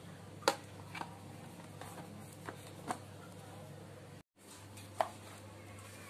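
Plastic tub lid being pressed shut, giving a few short sharp clicks, then one more knock as the plastic container is handled in the freezer compartment, over a faint steady hum.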